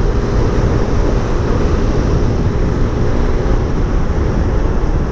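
Suzuki Intruder 125's single-cylinder engine running steadily at cruising speed, mixed with wind rush over the microphone.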